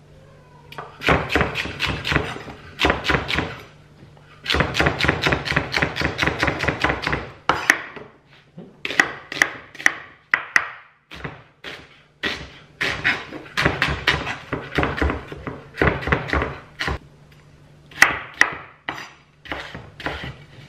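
Chef's knife chopping vegetables on a wooden chopping board: quick runs of knife strikes in several bursts with short pauses between, dicing celery first and then red onion and potatoes.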